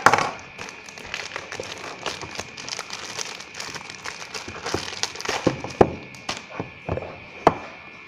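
Plastic courier mailer bag crinkling and crackling as a boxed phone is pulled out of it. It opens with a sharp clack as a utility knife is put down on the desk, and there are a few sharp knocks near the end as the cardboard box is set down.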